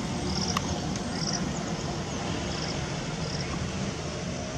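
Steady low rumble of a safari jeep's engine idling. Short high chirps come five or so times, with a single click about half a second in.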